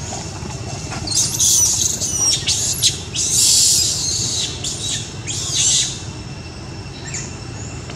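A series of shrill, high-pitched monkey screeches in quick succession, starting about a second in and dying away near the end. Under them runs a steady background hum with faint high steady tones.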